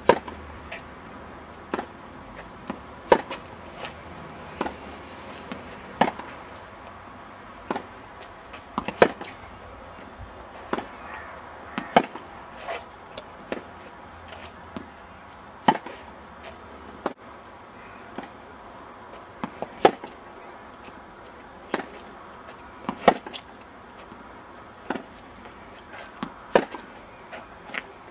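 Tennis balls being struck by rackets and bouncing on the court during a practice rally: sharp, separate thwacks of uneven loudness, about one every second or so.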